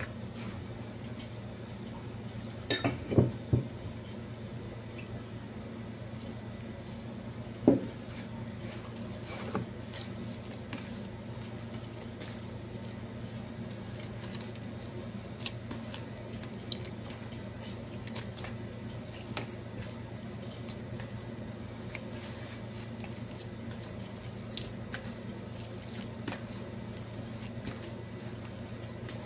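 Hand kneading crumbly piyaya dough in a plastic basin: soft squishing and scattered light taps against the bowl over a steady low hum. A short cluster of louder knocks comes about three seconds in, and a single sharp knock near eight seconds.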